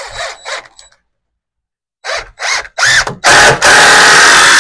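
Drill driving screws into truss lumber: a few short trigger bursts near the start, a quiet second, then three quick bursts and a loud steady run of about two seconds as a screw is driven in.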